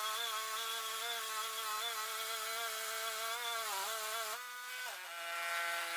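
Woodmizer LT10 bandsaw sawmill running with a steady whine. About four seconds in the pitch dips, then steps down to a lower steady tone as the mill's load or speed changes near the end of the cut.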